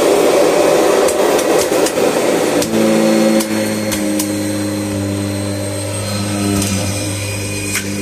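Kirby Generation 3 upright vacuum running as it is pushed over a concrete floor, with a few sharp clicks. About three seconds in, the rushing noise gives way to a steadier, lower hum.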